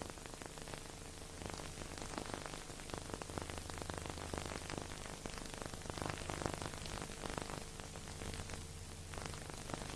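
Steady hiss with dense crackle and a low steady hum, with no music or voices: the background noise of a silent film's audio track.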